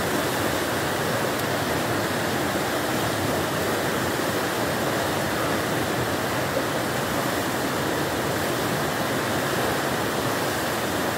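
River in flood: fast, brown floodwater rushing past in a steady, unbroken noise.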